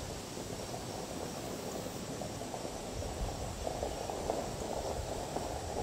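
A red SUV driving slowly back across the grass toward the driveway, its engine and tyres a distant rumble that grows gradually louder in the second half.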